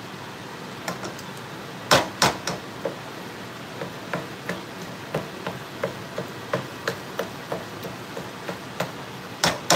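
Red silicone spatula chopping and stirring ground beef and sausage in a nonstick skillet, knocking against the pan. Two loud knocks come about two seconds in, then lighter strokes about three a second, and loud knocks again near the end.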